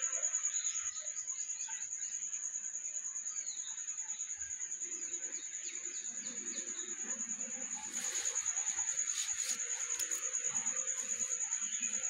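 High, steady insect trill, finely pulsed and unbroken throughout. Short bird chirps come over it in the first half, and a few brief scratchy rustles about two-thirds of the way through.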